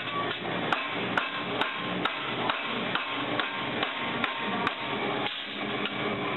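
Hammer blows on the edge of a metal propeller blade, struck in an even rhythm of a little over two blows a second, stopping about five seconds in. Steady shop noise runs underneath.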